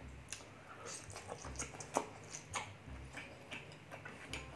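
Close-miked mukbang eating sounds: chewing braised pork leg with wet mouth clicks and lip smacks, the loudest about two seconds in.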